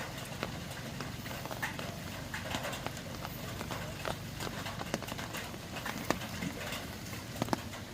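Steady rain with irregular sharp taps and knocks on top of it, spaced roughly half a second to a second apart.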